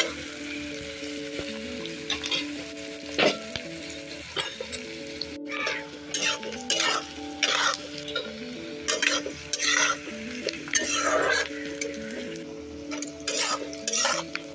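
Chopped onions sizzling in hot mustard oil in a kadhai, stirred with a spatula: a steady frying hiss with repeated scraping strokes against the pan, coming quickly one after another from about five seconds in.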